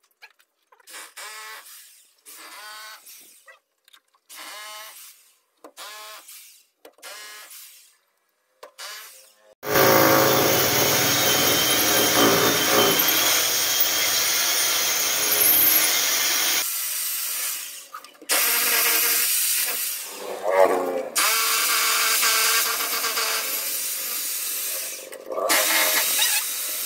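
Rotary hammer drill boring into a concrete wall to make holes for steel pins. It starts about ten seconds in and runs loud and steady, with a brief break a little past halfway and another near the end.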